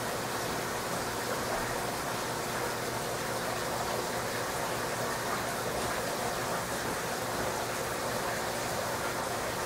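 Steady rushing of moving water from a large aquarium's filtration, an even noise that does not change.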